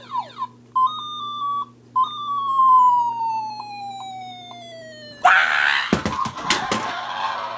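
Toy ray gun's electronic sound effects from its small speaker: a short steady beep, then a long whistle falling in pitch, ending about five seconds in with a sudden hissing explosion sound. A few sharp knocks follow.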